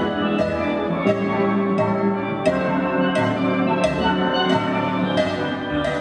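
Steelband playing: many steel pans struck with sticks, ringing notes layered in a busy rhythm, with a drum kit keeping a steady beat of sharp hits underneath.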